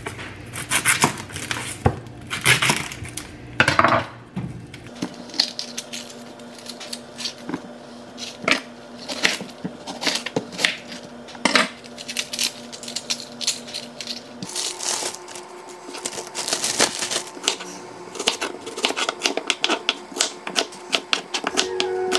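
Kitchen prep clatter: a long run of short knocks and clinks from utensils, cutting board and pans.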